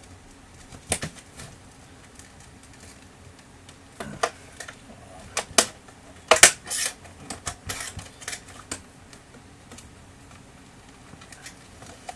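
Scattered sharp plastic clicks and knocks from a Samsung ML-1665 laser printer's plastic casing being pried and worked apart by hand. They are loudest in a quick cluster about six to seven seconds in.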